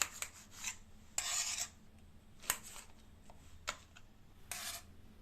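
Knife cutting brinjal (eggplant) into long strips: a few sharp taps of the blade, with short rasping slicing strokes in between.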